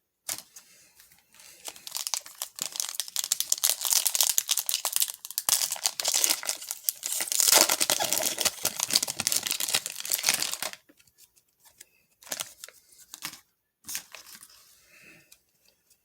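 Plastic wrapper of a baseball card pack being torn open and crinkled for about nine seconds, then cutting off, followed by a few short rustles.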